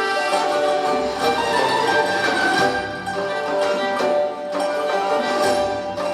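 Persian traditional ensemble music: bowed and plucked strings play a melody of held notes over repeated plucked strikes.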